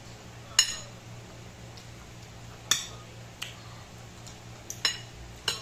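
Metal spoon clinking against a ceramic bowl while food is scooped: four sharp, ringing clinks spaced unevenly, with a couple of lighter taps between them.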